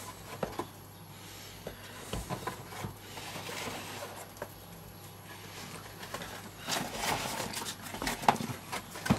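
Chef's knife slicing through a crusted loaf of Leberkäse on a wooden cutting board: soft cutting strokes with scattered light clicks and taps as the blade meets the board.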